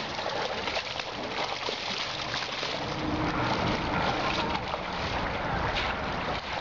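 Creek water running, with steady splashing.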